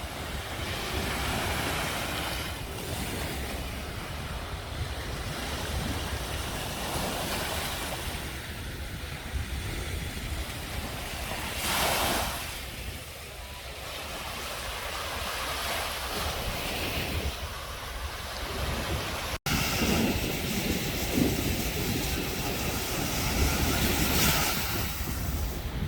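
Sea waves washing onto a sandy beach, with wind buffeting the microphone; one wave swells up louder about halfway through.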